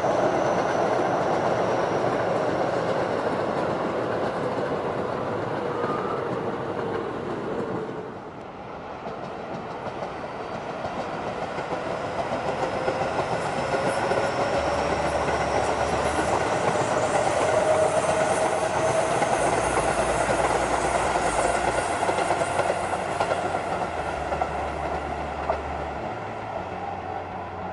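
Keio Line electric trains running past on the tracks. A whining tone falls as the first train goes by, the sound dips about eight seconds in, and a second train builds up with a rising whine from about twelve seconds in.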